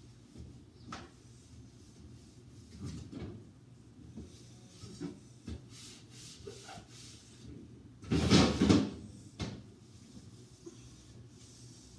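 Scattered knocks and rubbing as a fridge's drawers and shelves are handled during cleaning, with one louder clatter about eight seconds in.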